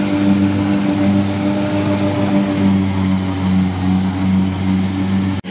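Rice combine harvester's engine running steadily as the machine cuts through standing rice, a loud, even drone. It cuts out abruptly for a moment near the end.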